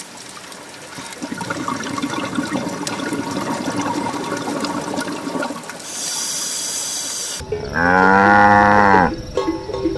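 A cow mooing once, a single loud drawn-out call about eight seconds in, over a steady noisy background.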